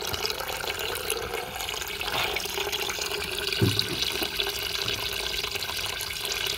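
Dark red Black Doctor wine running in a steady stream from a press outlet pipe into a plastic basin, splashing into the pooled liquid. This is free-run wine from fermented grapes, flowing as the press is loaded and before any pressing. A single soft low thud comes a little past halfway.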